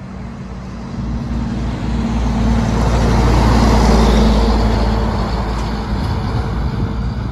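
Heavy diesel dump truck pulling a scrap-metal trailer driving past close by. The engine's low drone and tyre noise swell to a peak about four seconds in, then fade as it moves away.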